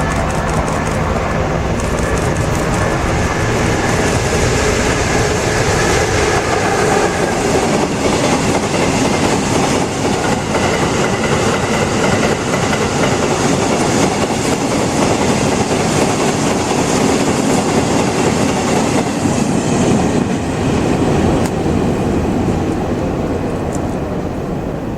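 Freight train of hopper wagons rolling past at speed: a steady loud rumble with wheels clacking rhythmically over rail joints, easing slightly near the end.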